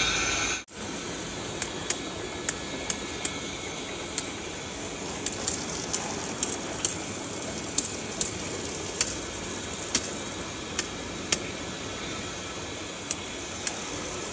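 Water spraying from a garden hose's brass adjustable nozzle: a steady hiss of fine spray, with sharp ticks scattered irregularly through it. A louder, different sound at the very start cuts off suddenly.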